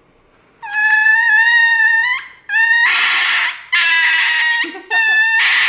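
Small dog screaming while being given an injection: four long, loud, high-pitched cries in quick succession, starting about half a second in.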